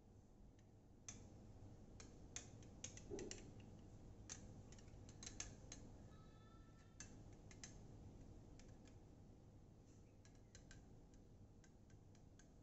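Metal spoon clinking and scraping faintly against a glass, heard as scattered small clicks and taps.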